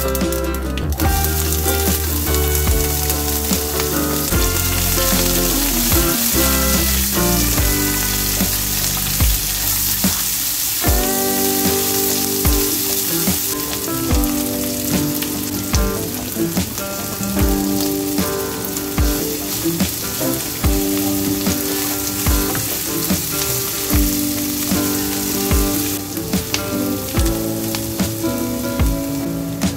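Sliced onions sizzling in hot oil with mustard seeds and dried chillies in a frying pan, stirred with a spatula, a steady hiss throughout. Background music with held notes and a steady beat plays under it.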